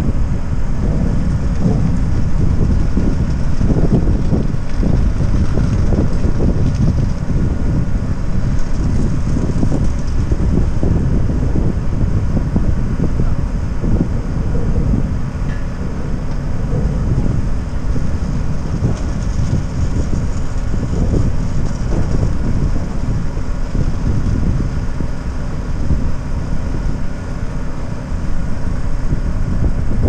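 Wind buffeting the microphone: a loud, uneven low rumble, over a faint steady hum.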